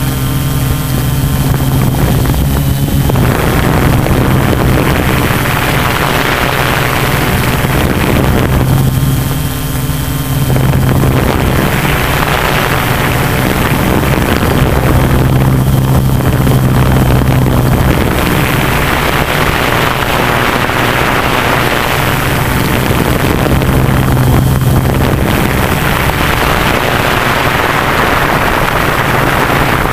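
Tarot 680 Pro hexacopter's electric motors and propellers running in flight: a steady low hum, with a rushing hiss of air over the microphone that swells and eases several times.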